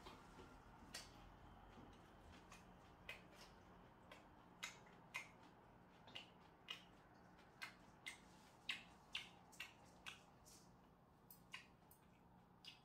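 Quiet eating: a person's soft chewing with small, irregular mouth clicks and smacks, about one or two a second, over faint room hum.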